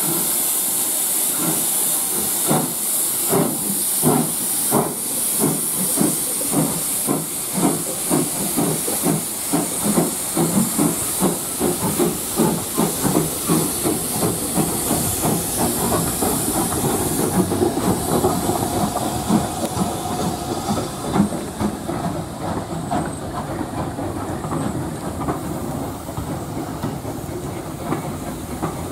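Steam tank engine Fenchurch, an LB&SCR A1 'Terrier' 0-6-0T, pulling away. Its exhaust beats start slow and quicken to several a second over a loud hiss of steam, which dies away a little past halfway.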